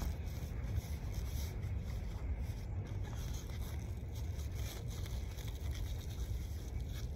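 Wind buffeting the microphone as a steady low rumble, with faint scattered rustles and scrapes.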